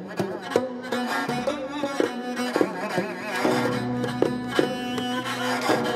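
Korean traditional music: bowed and plucked string instruments playing over regular drum strokes, about two a second.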